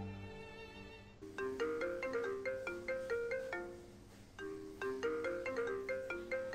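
Mobile phone ringtone: a bright marimba-style tune played twice over. It enters just as sad string music fades out in the first second.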